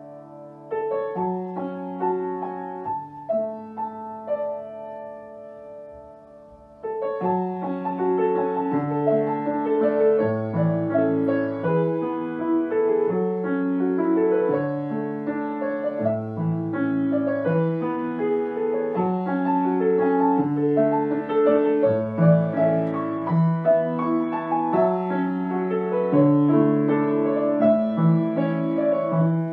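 Grand piano played solo, a notated piece of many running notes. It is quiet and sparse at first, then suddenly louder and fuller about seven seconds in.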